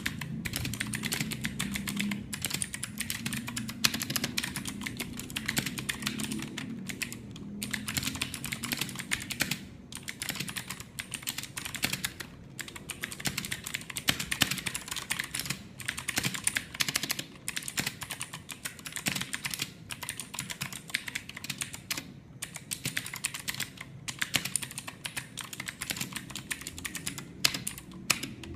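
Continuous fast typing on a mechanical keyboard with clicky Gateron Blue switches, a dense run of sharp clicks with a few brief pauses between bursts.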